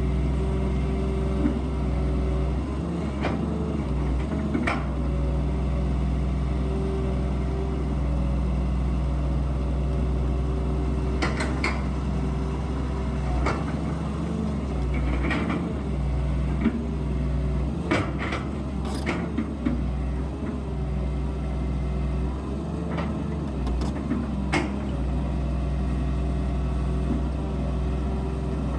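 Excavator's diesel engine running steadily under working load, its pitch shifting now and then as the hydraulics work, with sharp knocks and clanks at irregular intervals.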